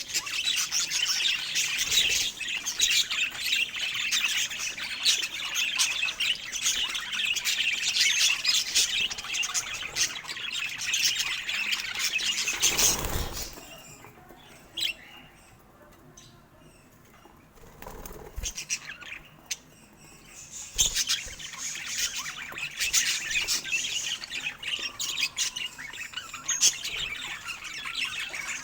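Budgerigars chirping and chattering in quick high notes, breaking off for several seconds near the middle, with a short rushing sound just before the lull.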